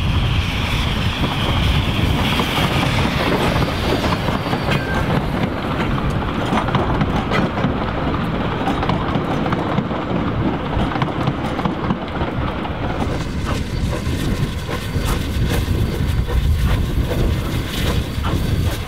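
NZR Ab class 4-6-2 steam locomotive and its carriages running past under steam, with the wheels clicking over the rail joints.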